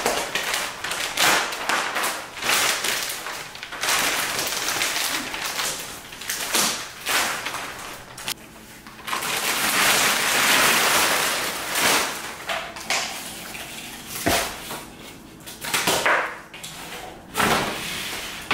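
Plastic wrap and cardboard packaging rustling, crinkling and tearing as a large floor mirror is unwrapped, with a sharp knock about two-thirds of the way through.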